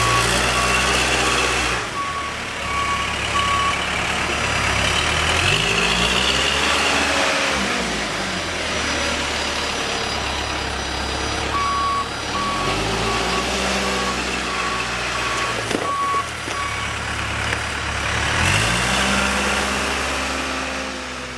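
2007 Case 580M Series 2 backhoe loader's diesel engine revving up and down as the machine is driven back and forth, with its reversing alarm beeping steadily at the start and again about halfway through while it backs up.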